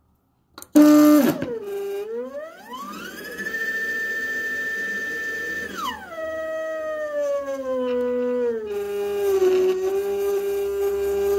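Stepper motor spinning a Taig lathe headstock and chuck, whining at a pitch that follows its speed as the speed control is turned. The whine starts about a second in, dips, rises to a steady high pitch, drops sharply about halfway through, then glides lower and settles into a steady lower tone.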